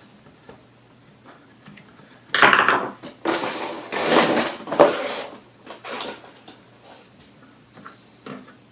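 Metal parts and tools clattering and scraping while a Hamilton Beach Model D mixer's motor is taken apart, starting about two seconds in and dying down to a few clicks after about six seconds.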